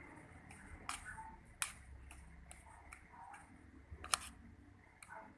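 A few sharp clicks and light taps, scattered irregularly, the loudest about four seconds in.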